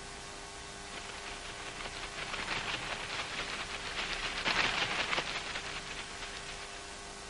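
Rain pattering as a dense hiss of fine drops. It swells to its loudest a little past the middle, then eases off.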